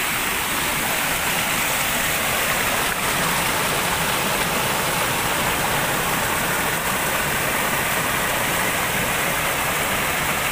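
Shallow stream water rushing and splashing over rocks in a small cascade, a steady, unbroken noise.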